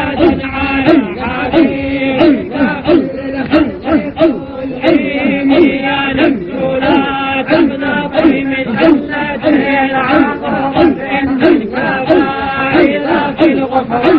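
Male voices chanting a devotional Arabic chant, with short repeated syllables about twice a second over a held tone.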